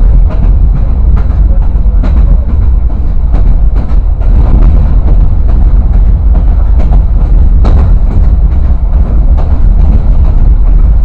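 A train running along the track, heard from on top of the moving car: a loud, steady rumble with frequent irregular clicks and knocks, and one sharper clank about two-thirds of the way in.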